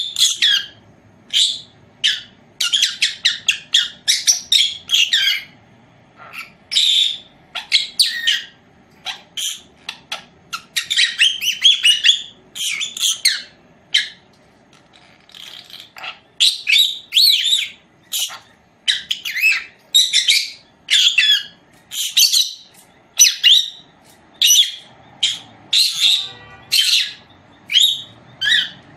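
Caged pet parrot chirping and squawking: quick runs of short, high-pitched calls broken by brief pauses.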